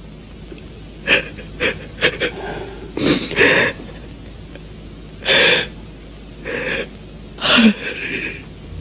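A person sobbing in grief, with uneven, wheezing, gasping breaths between the sobs; the longest gasp comes about halfway through.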